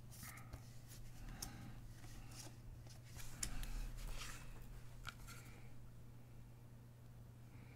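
Faint rustling and light taps of a stack of baseball cards being handled and set down on the table, loudest about three to four seconds in.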